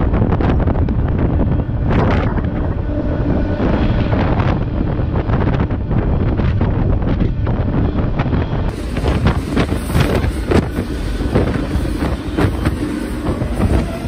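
Wind buffeting the microphone over the rumble and rattling clatter of a moving freight train, heard from aboard an intermodal well car.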